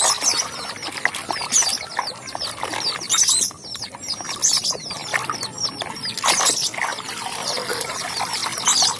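Birds chirping in many quick, high, downward-sweeping notes, with a couple of brief louder noises about three and six seconds in.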